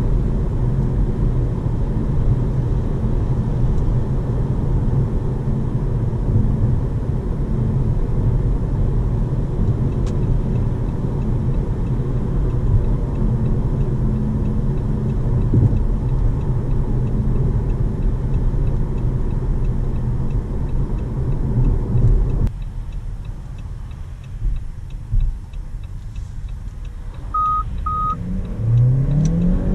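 In-cabin road and engine noise of a Jeep Compass 1.5 e-Hybrid (1.5 GSE mild-hybrid engine, dual-clutch gearbox) cruising at highway speed: a steady low rumble of tyres and engine. About three-quarters of the way through it drops suddenly to a quieter, lower-speed drive, two short high beeps sound, and near the end the engine note rises as the car accelerates.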